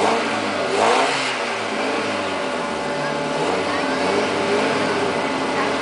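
Small hatchback race car's engine revving at the start line, the pitch rising and falling as the throttle is worked, with a sharp loud blip about a second in.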